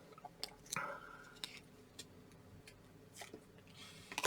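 Faint, irregular clicks and rustles of trading cards being flipped and slid against each other in the hand: cards from a pack of 2019 Prizm Football.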